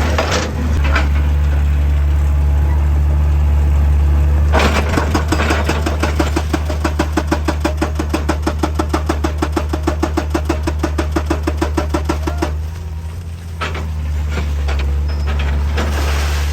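Excavator's engine running with a heavy, steady drone. In the middle comes a fast, even run of knocks, about six a second for some eight seconds, which then stops.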